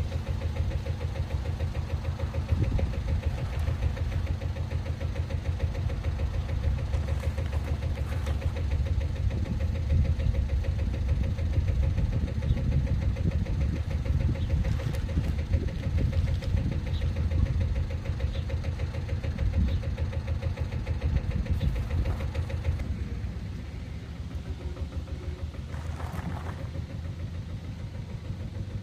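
A small engine running steadily with a fast, even pulse, easing off to a lower level for the last few seconds, with a few brief clatters or scrapes over it.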